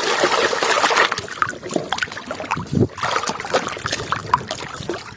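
Water sloshing and splashing as a muddy toy is washed clean in water: a steady rush for about the first second, then irregular small splashes and drips.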